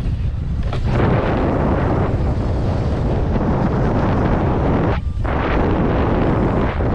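Heavy wind buffeting the camera microphone: a loud, steady low rumble that briefly thins out about five seconds in.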